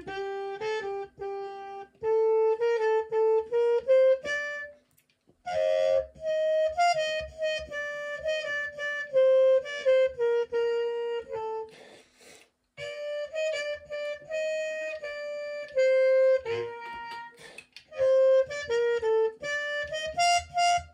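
Trumpet playing a slow melody of held notes, in phrases broken by short breaths about five, twelve and seventeen seconds in.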